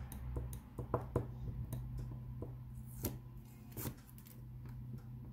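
Soft scattered clicks and taps of fingers handling a paper card frame and peeling the backing strip off double-sided tape, the clearest about one, three and four seconds in, over a low steady hum.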